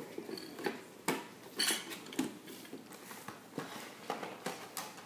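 Clear plastic packaging tray and cardboard box being handled: irregular crinkles, clicks and light knocks, with a longer crackling rustle about a second and a half in.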